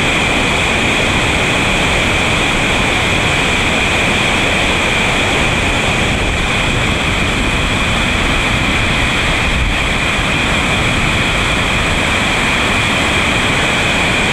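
Loud, steady rush of a big whitewater rapid on a river running at high flow.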